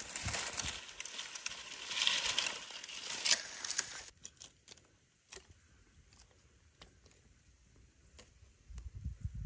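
Dry, thorny brush being dragged through long grass: a dense rustling and crackling of twigs, which stops abruptly about four seconds in. After that come only faint scattered crackles, a small stick fire crackling, and a low rumble near the end.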